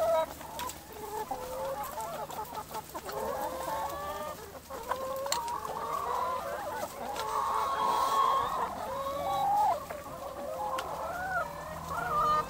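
A large flock of brown laying hens clucking and calling, with many calls overlapping one another.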